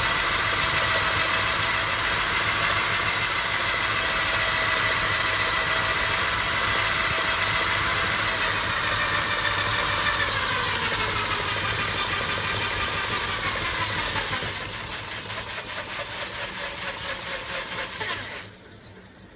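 Electric drill motor running, spinning the wooden frame of a homemade bucket honey extractor, with a high squealing whine. Around halfway through, the whine slides lower as the speed eases, and it runs quieter until it stops near the end with a few short high chirps.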